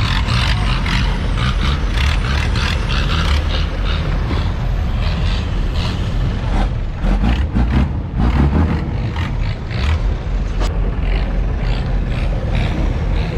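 Strong storm wind buffeting the microphone, with a boat engine running underneath and many irregular sharp slaps and bursts throughout.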